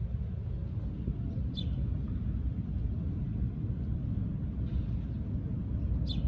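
Steady low outdoor rumble, with a small bird giving a short high chirp twice: about one and a half seconds in and near the end.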